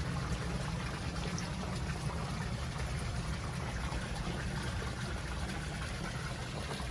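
Steady running, trickling water, as from a koi pond's waterfall or stream, with a constant low rumble underneath.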